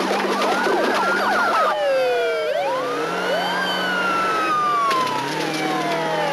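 Several police car sirens wailing over one another, with a fast yelp during the first couple of seconds and slower rising and falling wails after that, over the steady hum of car engines.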